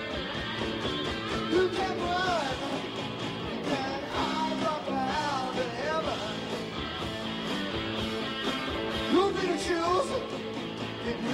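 Live rock band playing: electric guitar and drums under a lead singer singing the chorus.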